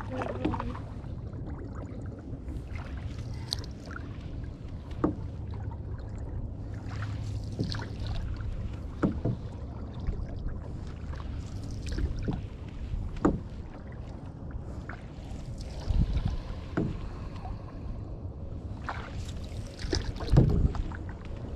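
Canoe paddling: short knocks and splashes from paddle strokes every second or two, the loudest near the end, over a steady low rumble of wind on the microphone.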